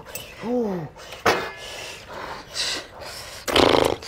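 A person's short hummed vocal sounds, rising and falling in pitch, near the start. About a second in comes a sharp knock with a brief metallic ring, and near the end a loud cough-like burst.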